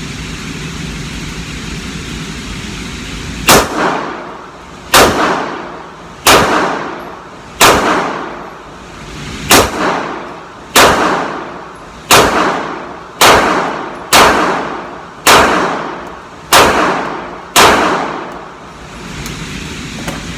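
Twelve shots from a 9mm Canik TP9SFX pistol, fired at a steady pace of about one a second, starting a few seconds in, each followed by a long echo in an indoor shooting range. The light 115 grain hand loads cycle through the Glock guide rod and spring without a malfunction.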